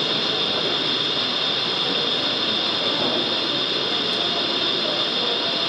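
Steady din of a busy exhibition hall, with a constant high hiss and no single sound standing out.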